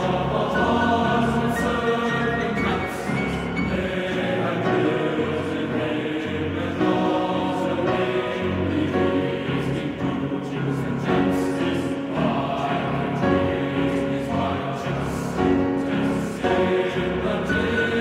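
Background music with choral voices singing held chords that change every second or two.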